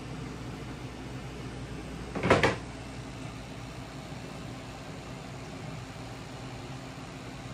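Steady hum of aquarium pumps and filters, with a single sharp knock about two seconds in.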